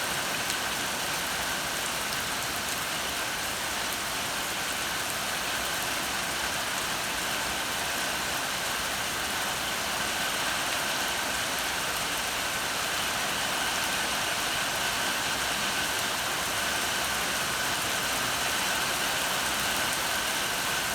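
Steady rain falling, an even hiss of many drops that does not let up.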